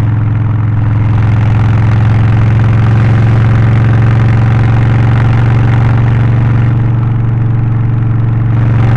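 Harley-Davidson Low Rider ST's Milwaukee-Eight 117 V-twin, in Stage 1 tune with an aftermarket exhaust, air filter and remapped ECU, running at a steady, even speed with no revving.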